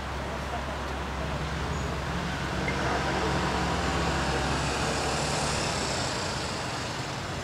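Road traffic: a steady low engine hum, with a passing vehicle's noise swelling up about two and a half seconds in and fading out near the end.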